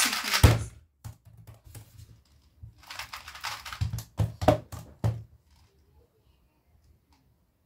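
A plastic 2x2 speed cube being turned fast by hand: a rattling clatter of quick clicks, faint about a second in and louder for about two and a half seconds from about three seconds in, then it stops.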